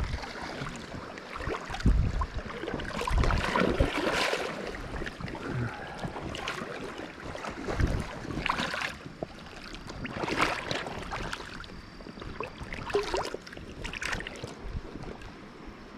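Water sloshing and splashing in uneven surges, as when wading along a creek, with wind buffeting the microphone.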